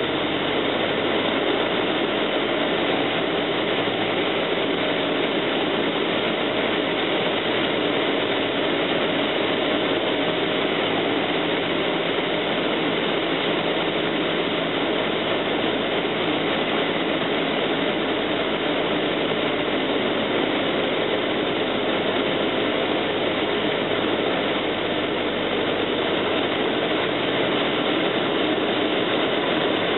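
Cessna 172M's four-cylinder Lycoming engine and propeller droning steadily, with rushing airflow, heard inside the cabin on landing approach.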